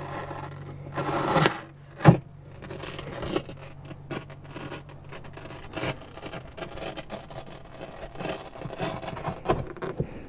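A luan-backed trim panel being pulled off industrial-strength Velcro on a subwoofer wall: rasping rips of the hook-and-loop letting go, with scraping and rubbing of the panel against the wall. The loudest rasp comes about a second in, followed by a sharp knock.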